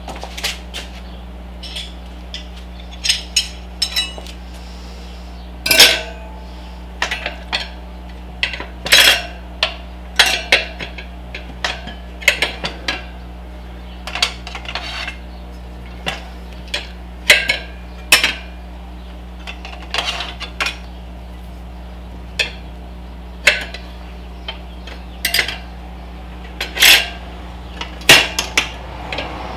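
Metal tyre irons clinking and tapping against a dirt-bike wheel rim as a tyre is levered onto it: irregular sharp metallic clicks, about one or two a second.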